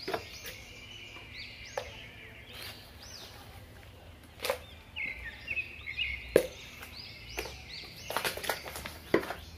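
Garden trowel scooping potting soil and knocking against pots, making a series of scattered sharp taps and scrapes, the loudest about two thirds of the way through. Small birds chirp in the background, mostly in the second half.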